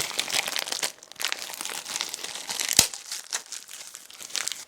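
A 20 cc syringe being taken out of its wrapper: steady crinkling and tearing of the packet, with one sharp click a little before three seconds in.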